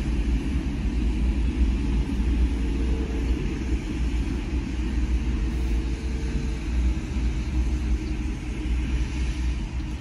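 Steady low rumble heard inside a parked van's cabin, with a faint steady tone for a few seconds in the middle.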